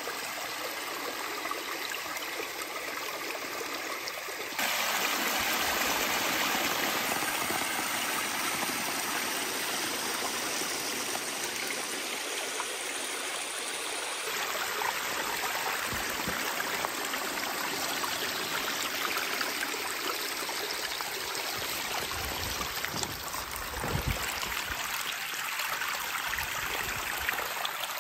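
Steady rushing of running water, such as a creek or stream. The sound steps up abruptly about four and a half seconds in and shifts again about halfway, with a few soft low thumps near the end.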